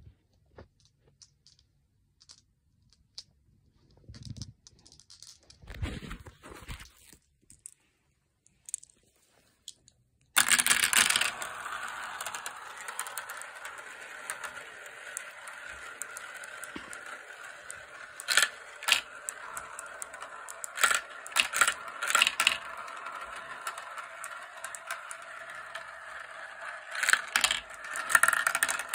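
Cat's-eye glass marbles rolling and rattling around the bowls and tracks of a plastic marble run, starting suddenly about ten seconds in after a few faint clicks. The rolling is steady, with sharp clacks now and then.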